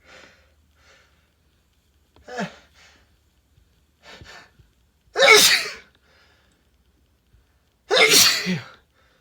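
A man sneezing twice, loudly, about five and eight seconds in. Each sneeze comes after a few short catching breaths as it builds. The sneezes are deliberately induced.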